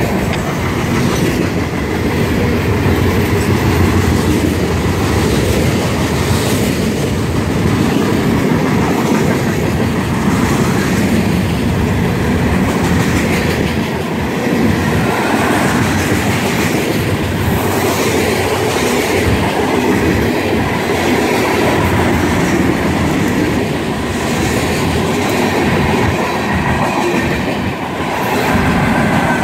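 Freight train cars rolling past at close range: a steady rumble of steel wheels on the rails with a running clickety-clack of wheels over the rail joints.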